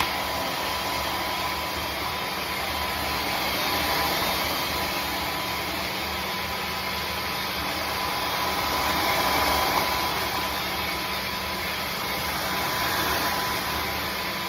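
Tineco Floor ONE S5 cordless wet-dry vacuum mop running while it cleans squashed food and seasoning off a hard floor: a steady motor whir with a thin high whine, swelling slightly in loudness a few times.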